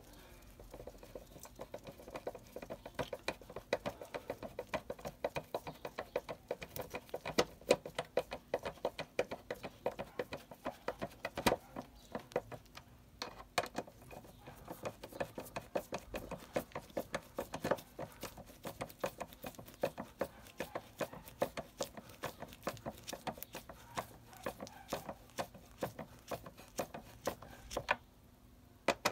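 A screwdriver turning screws into a pressure washer's plastic motor cover: a long, irregular run of small clicks and ticks, with a short pause near the end.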